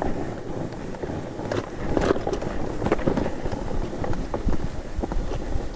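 Snowracer sled sliding over snow: a steady hiss and scrape of its runners, with a low rumble of wind on the microphone. A few short knocks come about two and three seconds in.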